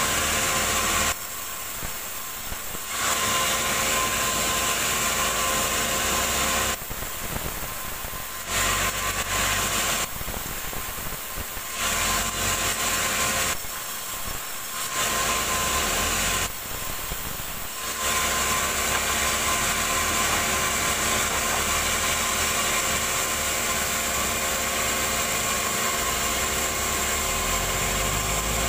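Vertical sawmill band saw running and ripping wooden slabs, a loud, steady machine noise that drops in level for a second or two about five times in the first two-thirds.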